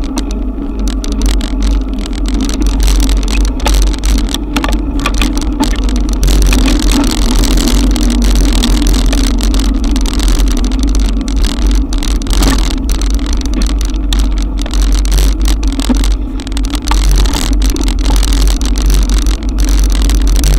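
Steady riding noise on an electric bike in a downpour: a heavy low rumble of wind and wet road over the camera microphone, with a steady hum above it.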